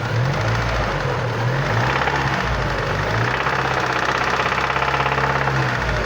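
Chevrolet Vectra Challenge engine idling with a rapid, even ticking knock riding over it, the strange engine noise the owner is trying to show.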